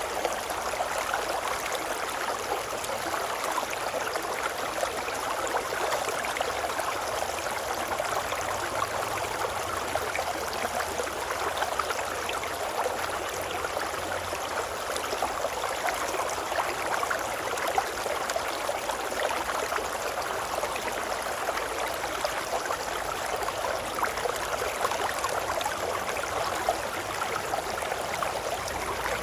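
A babbling brook: running water bubbling and rushing steadily, with fine crackles and no letup.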